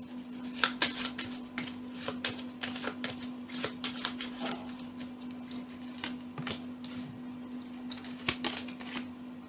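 A deck of tarot cards being shuffled by hand: an irregular run of quick, crisp card snaps and slides, over a steady low hum.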